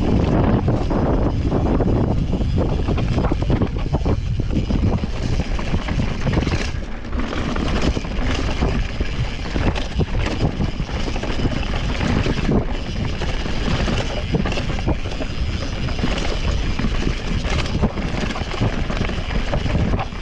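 Wind rushing over the action camera's microphone, with the steady clatter and knocks of a mountain bike running fast down a rough dirt trail on a descent.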